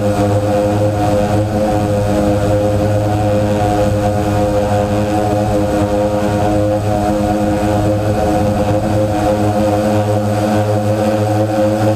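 DJI Phantom quadcopter's motors and propellers buzzing steadily in flight, heard up close from the GoPro mounted on the drone itself. The pitch holds steady throughout.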